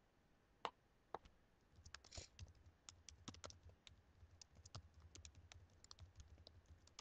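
Faint typing on a computer keyboard: irregular keystroke clicks, sparse at first and denser from about three seconds in, over a faint low rumble.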